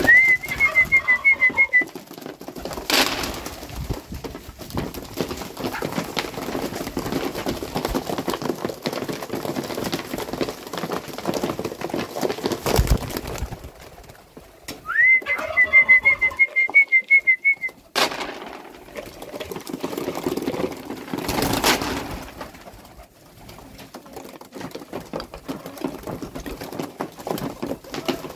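Domestic pigeons cooing and pecking grain off a wooden feeding tray, with a steady patter of small taps. A high, trilled whistle sounds twice, once at the start and again about halfway, louder than the flock.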